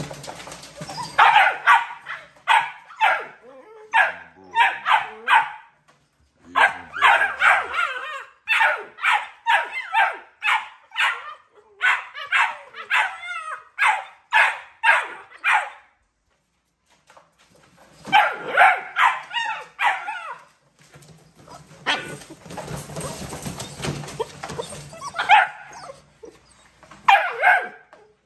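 American bully puppies barking and yapping in quick high-pitched runs, about two or three barks a second, with a short lull around the middle.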